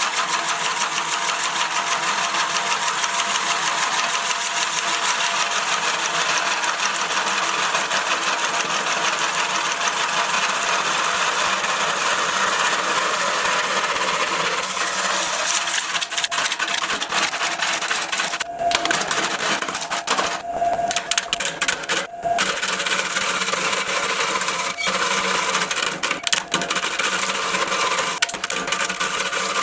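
Wood lathe spinning a tree-stump blank as a turning tool cuts it, with a fast, even chatter throughout. A few short breaks come about two-thirds of the way through.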